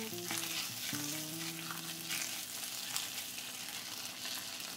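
Chopped onions sizzling in hot mustard oil in a kadai, stirred and scraped with a spatula, under soft background music.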